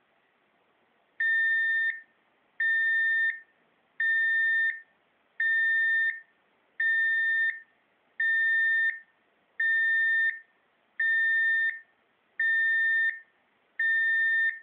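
Belvar RKS-B104 radiation dosimeter giving a steady alarm: ten evenly spaced electronic beeps of one high tone, each about 0.7 s long and about 1.4 s apart, starting about a second in.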